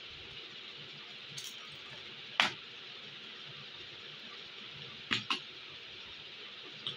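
Small screwdriver and wire being worked on the terminal screws of a plastic switchboard: a few sharp clicks and taps, the loudest about two and a half seconds in and a quick pair about five seconds in, over a steady hiss of recording noise.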